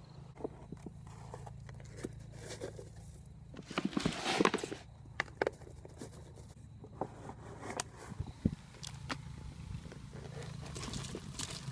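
Scattered scrapes, knocks and footsteps of outdoor hand work, with a louder run of scraping about four seconds in.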